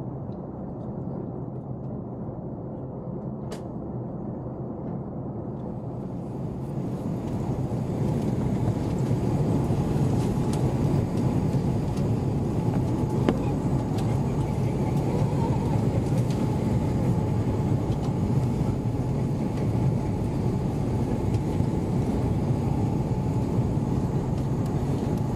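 Steady cabin noise of a jet airliner in flight: the constant rush of engines and airflow heard from a window seat. It grows louder about seven seconds in, then holds steady.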